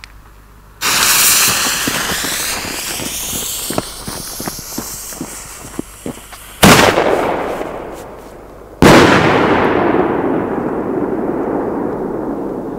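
50mm single-shot firework shells going off: a sudden loud blast about a second in that dies away over several seconds with a run of small pops, then two sharp bangs about two seconds apart, the last trailing off in a long echo.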